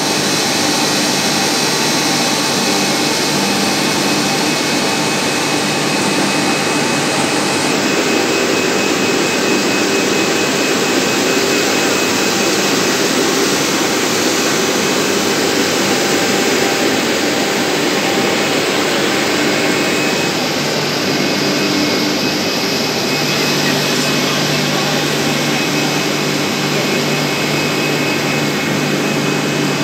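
Steady machinery noise of a running corrugated polyethylene pipe production line: a continuous even rush with a few faint steady tones. A low hum comes up stronger in the last quarter.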